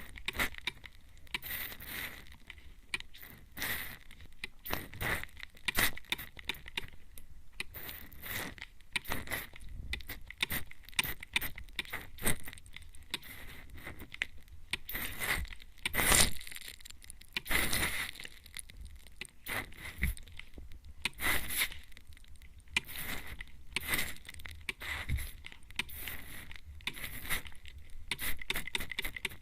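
Spray-bottle mister spritzing at close range toward the ear, in short hissy bursts repeated irregularly about one or two a second.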